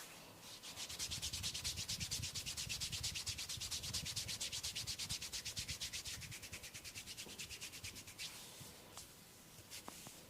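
Hands rubbing briskly back and forth over a person's hair and scalp in a head massage, as fast, even strokes at several a second. The strokes fade and stop about eight seconds in.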